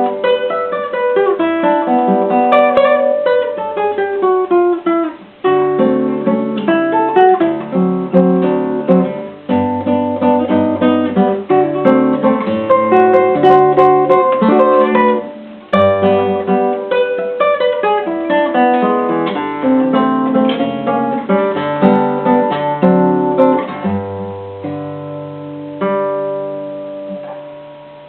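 Acoustic guitar playing a choro, plucked melody over a moving bass with long descending runs. It breaks off briefly about five seconds in and again near sixteen seconds, and grows quieter toward the end.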